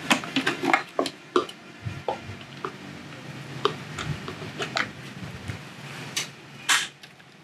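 Clear plastic food-processor bowl being handled and shredded carrot lifted out by hand: a run of light plastic clicks and knocks, busiest in the first second and a half, then scattered, with a louder scrape near the end.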